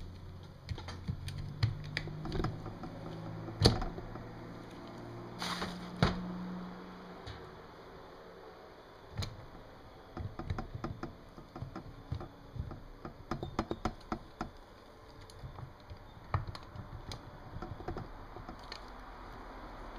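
Irregular light metal clicks and taps, with a few sharper knocks about 4 and 6 seconds in, as bolts and parts of a Honda F22B1 cam tower and rocker assembly are handled and set on the cylinder head.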